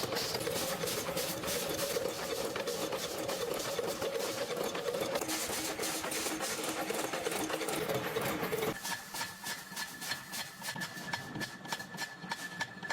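Machinery running steadily with a hum. About nine seconds in it gives way abruptly to a quieter, rapidly clicking machine with a high steady tone.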